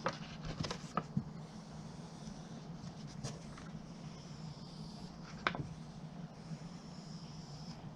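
Squeegee rubbing and scraping over a vinyl decal on a vehicle door, with a few light clicks near the start and one about five and a half seconds in, over a steady low hum.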